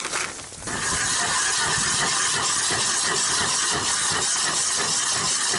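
Motor-driven 100 mm ice auger boring through lake ice. It starts suddenly less than a second in and runs as a steady, unbroken motor and cutting noise.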